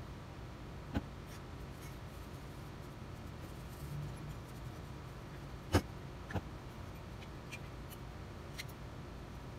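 Objects handled on a wooden workbench while restoring a metal compass plane: a few sharp knocks as things are set down, the loudest about six seconds in, with light handling and scratching noise over a steady low hum.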